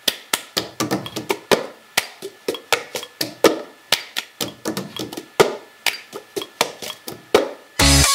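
Intro of an electronic dubstep mashup: sharp percussive taps, about four a second in a loose rhythm. Near the end a deep bass hit brings in the full electronic track.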